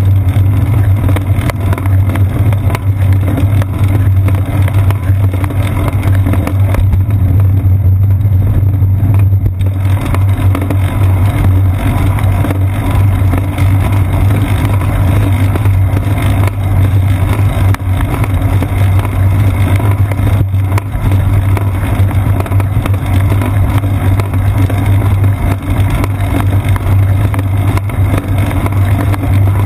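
Steady low rumble of wind buffeting and road vibration picked up by a seat-post-mounted GoPro Hero 2 on a moving bicycle. The upper range drops away briefly about eight seconds in.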